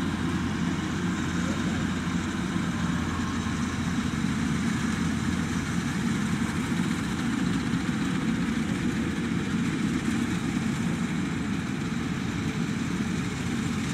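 Combine harvester's diesel engine and threshing machinery running steadily at an even drone.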